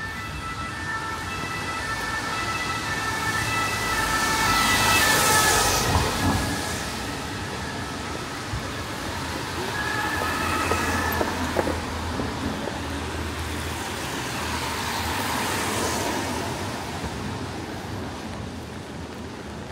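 Cars passing on a rain-wet street, their tyres hissing on the wet road, swelling loudest about five seconds in and again near fifteen seconds. A distant two-tone siren alternates between two notes through the first six seconds and briefly again around ten seconds.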